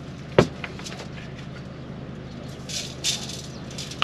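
Food-prep handling sounds: a sharp knock about half a second in as a spice grinder is put down on the camp kitchen bench, a few light clicks, then a short rasping burst from a seasoning container near the end.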